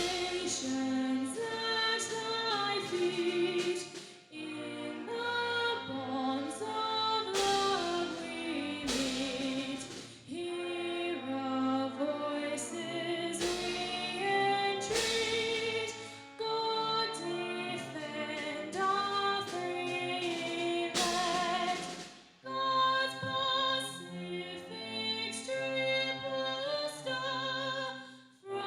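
A female singer singing a national anthem, in phrases broken by short breaths about every six seconds.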